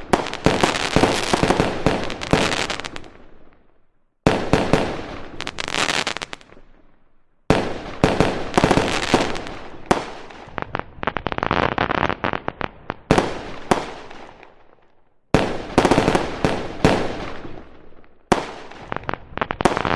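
Fireworks going off in volleys of many rapid, sharp crackling pops. Each volley dies away, and a new one starts suddenly about four, seven and a half, fifteen and eighteen seconds in.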